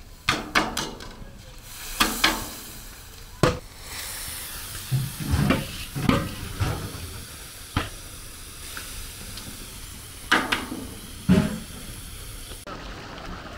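Food frying in a large cooking pot, with a steady sizzling hiss that cuts off shortly before the end. Loud sharp clanks and knocks sound about ten times over the hiss.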